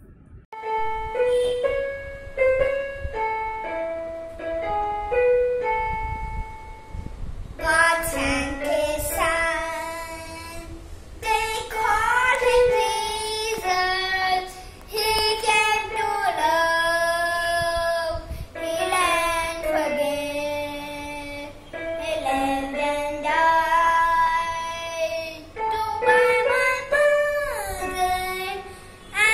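A child singing a worship song over instrumental accompaniment; the accompaniment plays a short melody alone first, and the voice comes in about seven seconds in.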